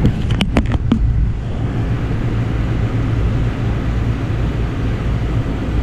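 Carrier rooftop AC unit running just after start-up, its compressor giving a steady low hum, with a few light clicks in the first second. It is the unit's first run after its clogged filter drier was replaced.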